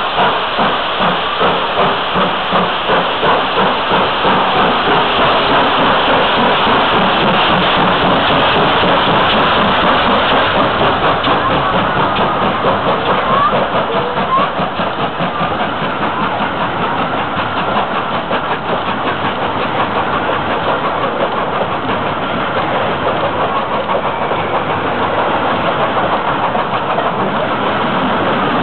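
FS Gr. 740 steam locomotive pulling out with a train: its exhaust chuffs, about two to three a second, quicken and blur into a steady rush of steam. The coaches then roll past.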